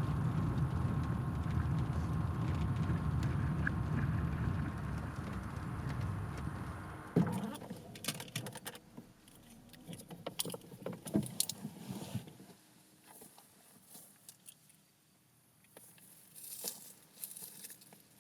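Dacia Sandero driving with a steady low road rumble. The rumble stops with a thump about seven seconds in, and scattered light clicks and rattles follow.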